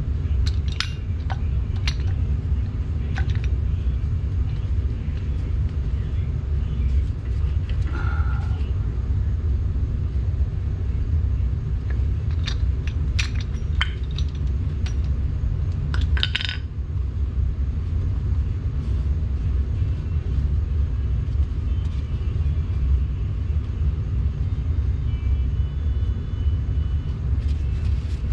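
Steady low rumble, with scattered metallic clicks and clinks of tools against the brake caliper and pads: a few near the start and a cluster about halfway through.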